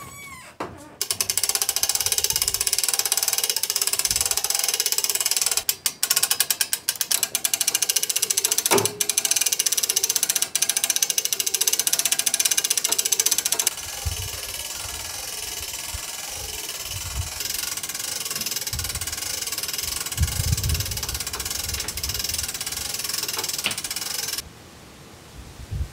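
Hand-cranked winch of a manual material lift, its ratchet clicking rapidly as the steel cable winds onto the drum. About halfway through the sound turns quieter and steadier, and it drops away near the end.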